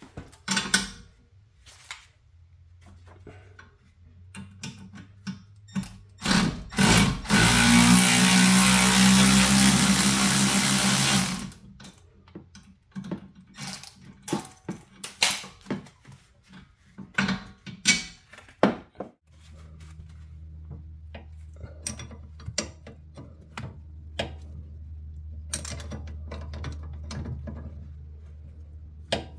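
Tools working on a car's strut and spring assembly: ratchet clicks and metal clinks throughout, a loud power tool running for about four seconds partway through, and a steady low hum through the last third.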